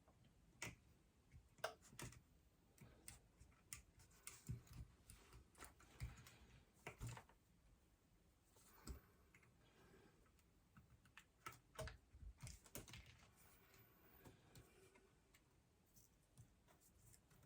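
Faint, irregular small clicks and taps of hand tools and small phone parts being handled during an iPhone repair.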